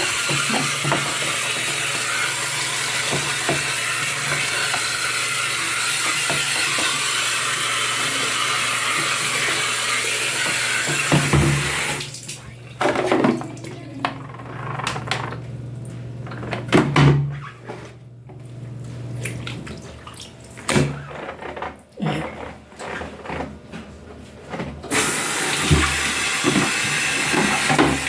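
Steady rush of running water with a low hum underneath, which stops about twelve seconds in. Scattered knocks and clatter follow, and the rush of water starts again near the end.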